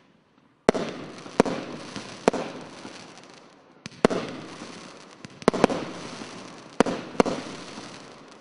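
SkyLine Street Collection consumer fireworks battery firing a series of shots: about eight sharp bangs, irregularly spaced and two of them in quick pairs, each trailing off in a fading hiss.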